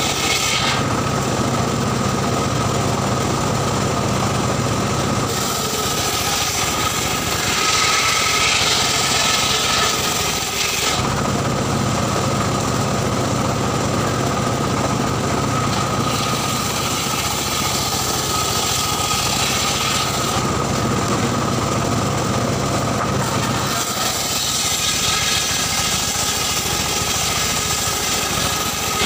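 Homemade circular saw bench running steadily, with a constant high whine from the machine. Three times, about five seconds in, past halfway and near the end, a harsher rasping hiss comes in for several seconds as the blade cuts through mahogany logs.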